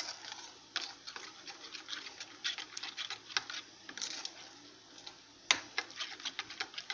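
Metal spoon stirring thick spiced yogurt in an enamel bowl, clinking and scraping against the bowl's sides in a string of irregular ticks.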